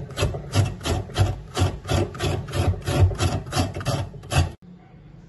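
Raw papaya being grated by hand: quick, even rasping strokes, about four a second, that stop abruptly a little over four seconds in.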